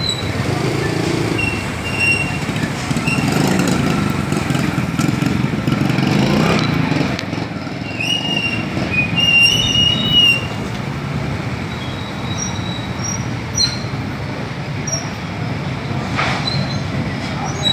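Slow, congested street traffic heard from a motorcycle: small motorcycle engines running and idling close by, with a few short high-pitched squeals about eight to ten seconds in.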